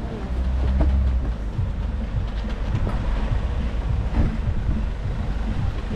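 Steady low rumble with a few faint knocks and rattles over it.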